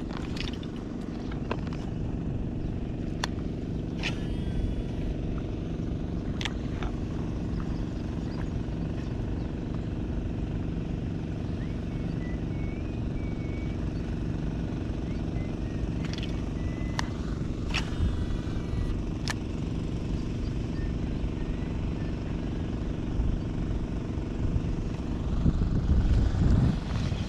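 A small engine running steadily under a low rumble, with a few sharp clicks scattered through. It grows louder near the end and then cuts off abruptly.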